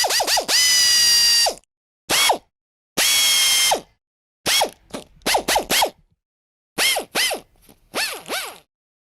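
Cordless drill pulsed on and off with its trigger, the motor whining up in pitch and falling away on each short burst. Twice it is held at a steady speed for about a second: at the start, and again about three seconds in.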